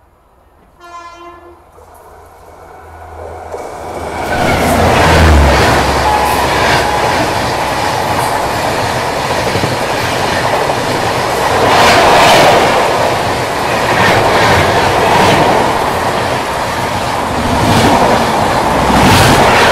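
Chennai Rajdhani Express overtaking on the adjacent track: its electric locomotive's horn sounds briefly and distantly about a second in, then the train rises to a loud rushing roar as the locomotive and LHB coaches pass close by at speed, with wheels clattering over rail joints.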